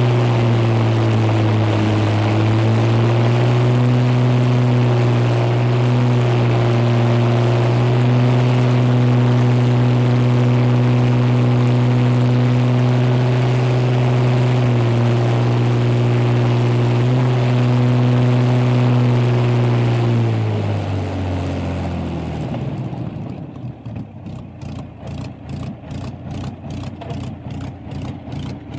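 Spitfire's V12 piston aero engine running steadily, then throttled back about 20 seconds in so that its note falls, settling into a slow, lumpy idle of about three beats a second near the end.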